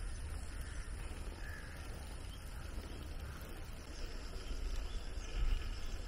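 A crow cawing a few times, faintly, over a low steady rumble.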